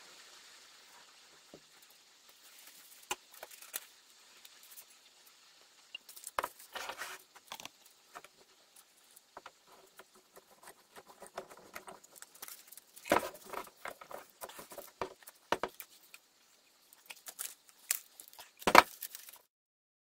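Small wooden pieces handled on a wooden workbench: irregular clicks, taps and light rustling, with a sharper knock near the end.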